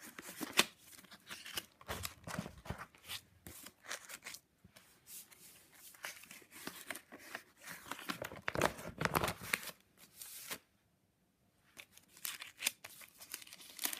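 Crinkly clear plastic and paper journal pages crackling and rustling as they are handled and turned on the rings of a binder. The rustling stops for about a second near the end, then starts again.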